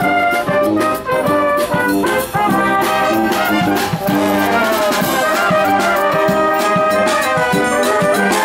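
Military brass band playing: brass instruments including tubas carry the tune, with a drum kit beating time.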